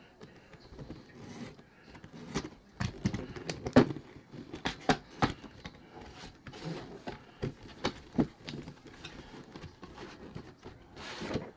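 Hands opening a sealed cardboard box: irregular scrapes, clicks and rustles of cardboard, with a longer sliding scrape near the end.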